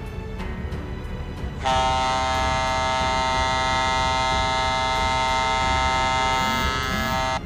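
A ship's horn sounds one long, steady blast of several tones at once, starting about two seconds in and cutting off abruptly just before the end, over a steady low rumble of wind and harbour noise.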